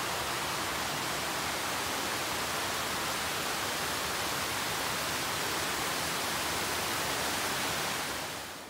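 Creek water rushing steadily over rocks, an even hiss of moving water that fades out near the end.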